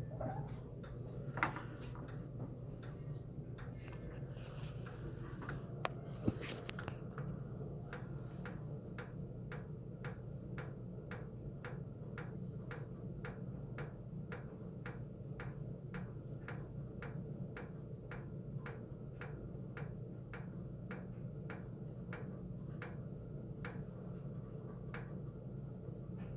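The 5.0 L V8 of a 1995 Ford F-150 running with a steady, even ticking, about two ticks a second. The owner traces the tick to the driver's side of the engine. A few sharper clicks sound in the first several seconds before the tick settles into its rhythm.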